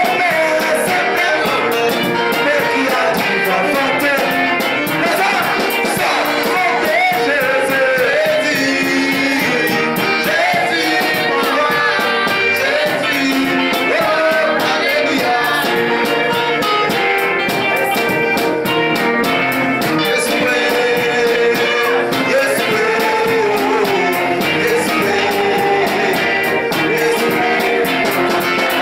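Live worship band: men singing into microphones over electronic keyboard and acoustic-electric guitar, with a steady beat.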